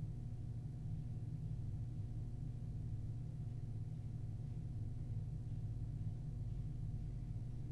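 Steady low hum with a faint steady whine above it: the room tone of an empty interview room picked up by its recording system.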